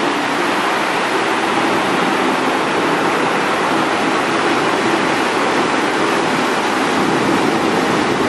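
Steady rush of river water pouring through a regulator's gates and churning white below it, an even hiss with no breaks.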